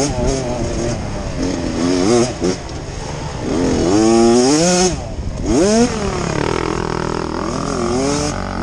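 Dirt bike engines revving up and down as riders work the throttle, pitch climbing and dropping every second or so, with more than one bike heard at times.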